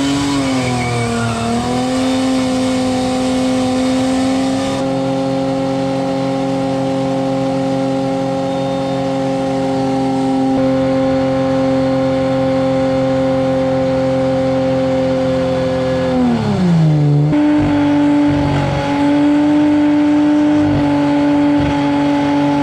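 Car engine held at high, steady revs, as in a skid or burnout. It revs up at the start, holds one pitch for a long stretch, dips about three-quarters of the way through, then climbs back and holds a slightly higher pitch to the end.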